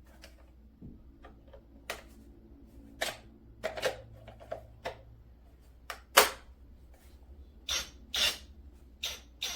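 A series of sharp clicks and knocks at irregular intervals, the loudest about six seconds in, from hard objects being handled and set down.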